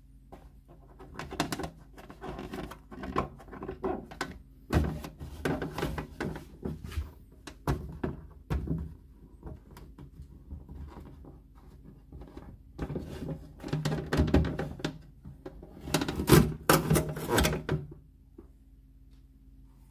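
Hands peeling protective stickers and film off a fridge-freezer's plastic and glass parts: irregular scraping, rustling and knocks, with a few thunks of parts being handled, busiest near the end.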